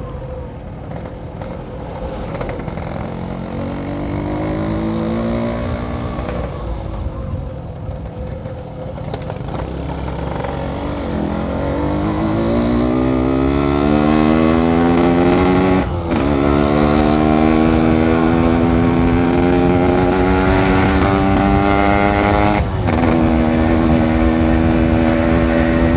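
Yamaha RX-King's 135cc two-stroke single-cylinder engine under way, revving up after an early rise and fall in pitch, then accelerating through the gears. The rising pitch cuts out briefly at two gear changes, about two-thirds of the way in and near the end, and then holds steady.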